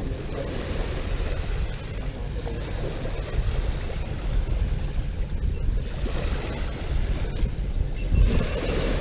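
Strong wind buffeting the microphone on a boat in rough sea, a heavy low rumble over the wash of waves, with one stronger gust near the end.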